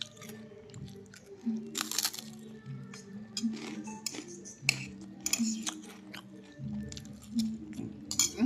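A person chewing and biting crunchy food, with several sharp crunches and light clinks of tableware, over background music.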